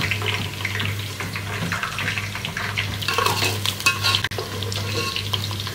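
Sliced onions sizzling and crackling as they fry golden brown in hot oil in a pot, with a metal spoon scraping and clinking against the pot as they are stirred and lifted out; the clinks get busier about three seconds in. A steady low hum runs underneath.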